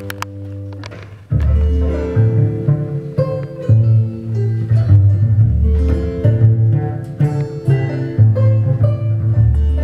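Live acoustic folk band playing an instrumental passage: acoustic guitar and banjo picked over a double bass. After a brief quieter moment the full band with the deep bass notes comes back in about a second in.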